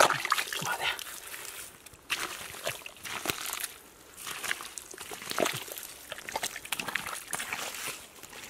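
Hands digging and squelching through wet mud, with bare feet shifting in it: irregular wet squishes, slaps and crackles.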